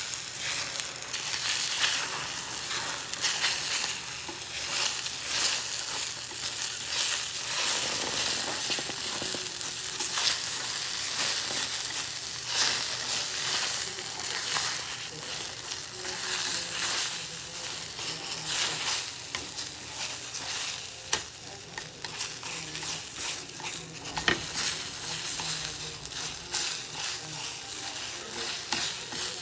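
Food sizzling as it fries in a pan, with a utensil stirring and scraping against it in frequent short strokes.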